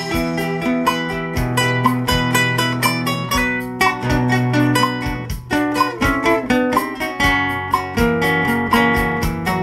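Two nylon-string acoustic guitars playing a song's instrumental passage together, plucked melody over strummed chords, with a steady clicking beat.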